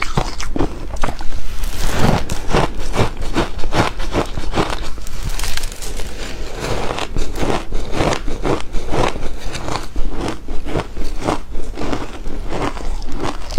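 Crunchy ice being bitten and chewed, a dense, uneven string of sharp crunches and crackles, several a second.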